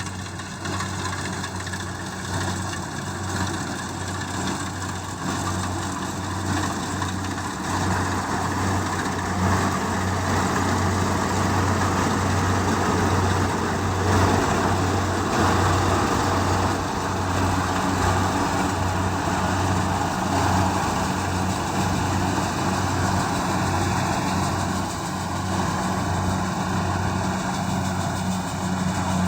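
Kubota DC-70G rice combine harvester running, its diesel engine a steady low drone under a dense mechanical noise from the machine.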